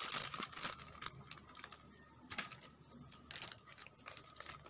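Thin plastic bag crinkling and rustling as powdered hot cake mix is poured from it into a plastic bowl, with irregular small clicks that are busiest in the first second and thin out after.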